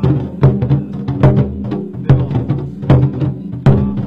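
A group of large Taiwanese barrel war drums (zhangu) beaten together with sticks in a steady pattern. Heavy accented strokes fall about once a second, with lighter strokes between.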